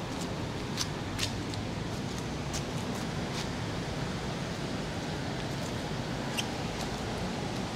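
Steady rushing noise of a wet city street in the rain, heaviest in the low end, with a few scattered light ticks.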